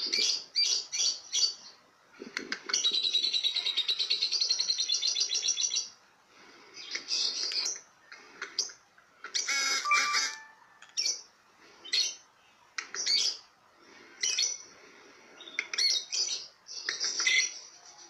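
Small blue caged parrot calling: bursts of shrill, rapid chirps, then a long, fast trill lasting about three seconds, then more short bursts of chattering chirps with brief pauses between them.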